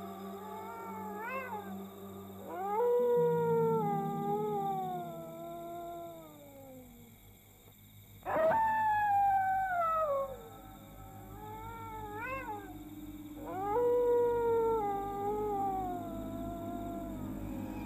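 A dog howling: three long howls, each sliding down in pitch over several seconds, with short rising-and-falling yelps between them.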